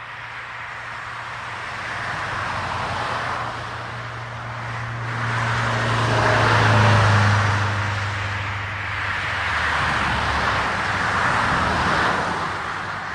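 A few cars passing one after another on an asphalt road, each a swell of tyre rush and engine hum that rises and fades away; the loudest passes about halfway through.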